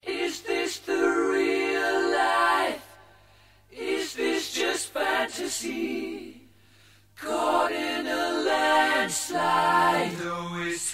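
Unaccompanied, multi-voice a cappella vocal harmony sung in three slow phrases, with two short pauses between them.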